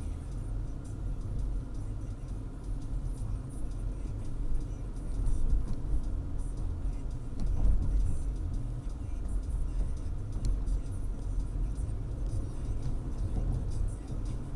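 Steady low road and engine rumble of a moving car, heard from inside the cabin through a dashboard camera's microphone.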